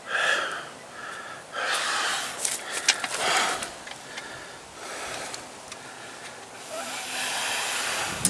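A man breathing hard, drawing and blowing out heavy, noisy breaths in long swells: huffing and puffing from exertion.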